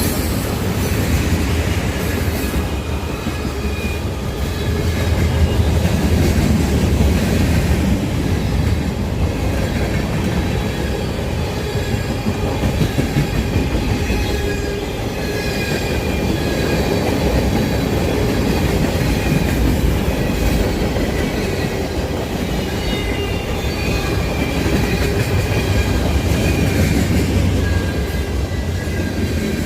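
Freight train cars rolling past steadily, wheels rumbling on the rails, with faint high-pitched wheel squeal coming and going.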